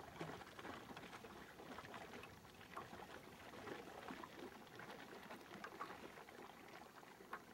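Faint water lapping and trickling on calm sea water, many small irregular splashes and gurgles around a sea kayak.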